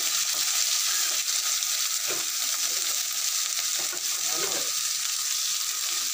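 Chopped onions, green chillies, ginger and garlic sizzling steadily in hot mustard oil in a steel kadai, stirred with a spatula.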